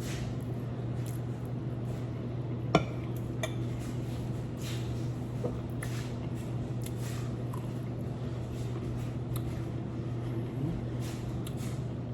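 Eating at a plate: one sharp clink of a fork against the dish about three seconds in, a few lighter clinks and soft mouth sounds, over a steady low hum.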